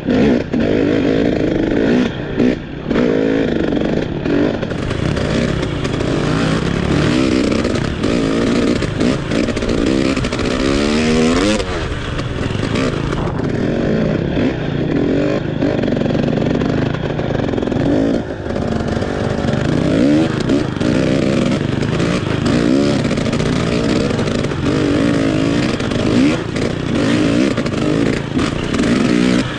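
Trail motorcycle engine revving up and down as it is ridden, its pitch rising and falling over and over, with a long climb in pitch about ten seconds in.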